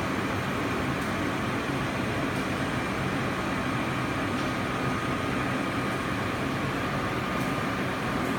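Continuous inkjet coding printer running through its start-up: a steady mechanical hum and hiss with a thin high whine, and a few faint ticks.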